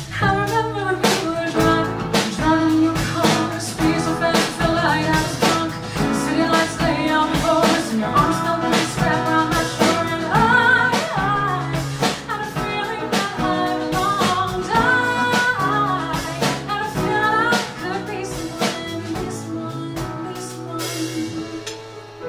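A woman singing live into a microphone, backed by a band with guitar and a drum kit keeping a steady beat.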